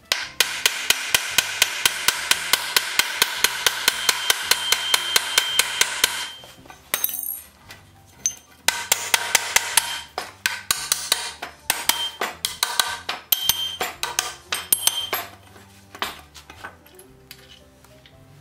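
Hand hammer striking the iron fittings on a wooden wagon brake beam. A fast, even run of about seven blows a second lasts some six seconds, then slower, irregular blows follow, and a few light clicks come near the end.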